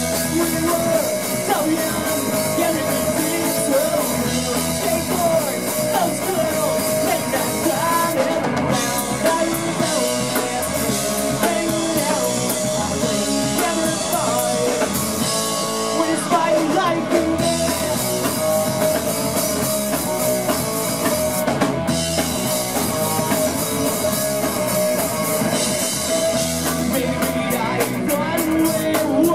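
Punk rock band playing live: electric guitar, bass guitar and drum kit, with sung vocals.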